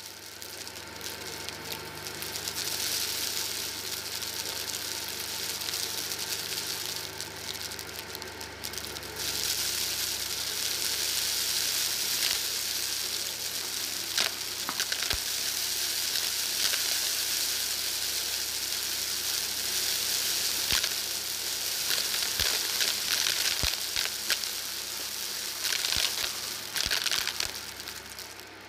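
Shark DuoClean Lift-Away upright vacuum running over carpet, sucking up scattered white granules with a steady crackling hiss over the motor's hum, dotted with sharp ticks as bits are picked up. The crackle grows louder about a third of the way in.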